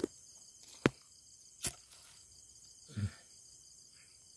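Two sharp clicks about a second apart, then a soft low knock, as dry grass kindling and a lighter are handled at a clay charcoal stove. Crickets chirp faintly and steadily behind.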